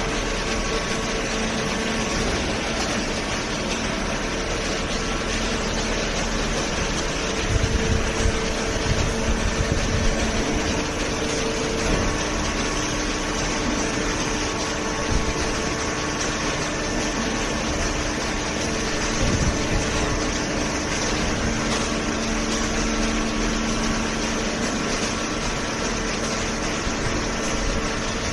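Hydraulic baler's electric pump motor running steadily, a continuous mechanical hum with a low rumble that grows briefly louder about eight to twelve seconds in.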